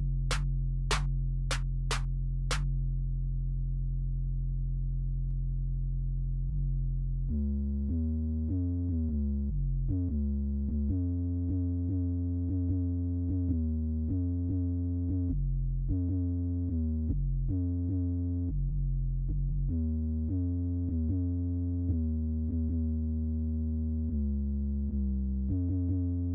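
Electronic background music: a low held synthesizer chord with five sharp clicks in the first few seconds, then a low synth melody of short changing notes from about seven seconds in.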